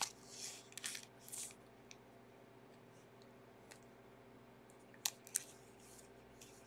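Soft crinkling and rustling of a clear plastic card sleeve as a trading card is slid into it, followed about five seconds in by two sharp clicks.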